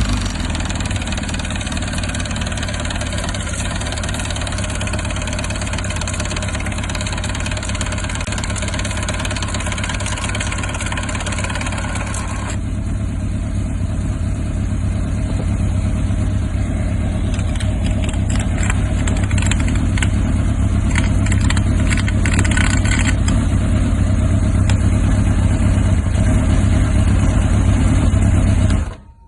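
Yamaha YZF-R1 (1998–2001) inline-four engine idling with a knocking rattle from the clutch basket, the sign of a worn clutch basket. Its tone changes abruptly about twelve seconds in.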